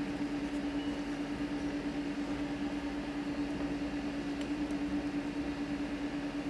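A small electric machine running with a steady, even hum, then switching off abruptly.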